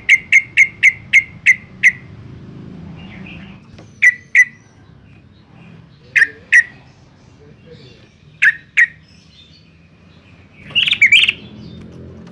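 Yellow-vented bulbul calling: a fast run of sharp, clear notes at about four a second, then paired notes every two seconds or so, and a short bubbly phrase near the end. A faint low hum sits behind the calls.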